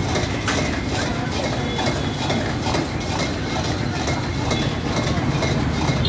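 Busy street traffic noise, vehicle engines running steadily.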